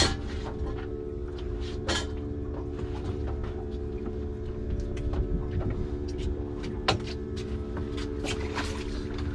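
Boat engine running steadily with a low hum, under a rumble of wind and water, with a few sharp knocks and clicks scattered through.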